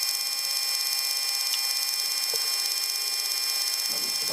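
Steady high-pitched whine and hiss of an E-3 AWACS's turbofan jet engines running just after start, several fixed tones sounding together.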